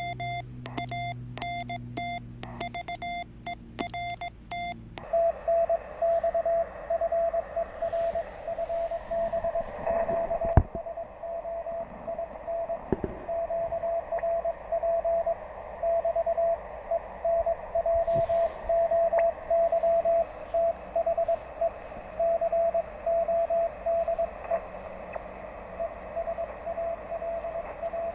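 Morse code from a Youkits HB1B QRP transceiver's speaker. For the first five seconds the keyed tone is buzzy and rich in overtones. After that a cleaner single-pitch CW signal is keyed on and off over steady band hiss, with one sharp knock about ten seconds in.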